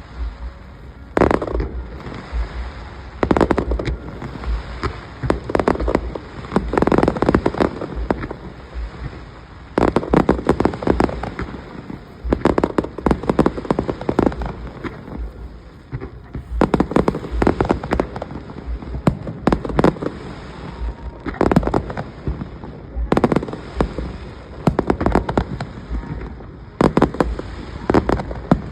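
Fireworks display: aerial shells bursting one after another, loud booms every second or two, with runs of rapid sharp cracks between them.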